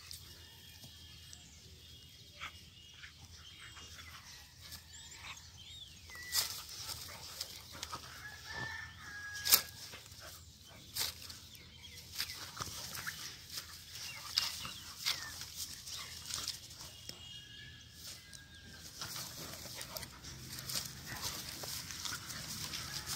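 A Doberman and a desi (Indian pariah) dog fighting in grass, with short sharp dog sounds scattered irregularly through, the loudest about nine and a half seconds in.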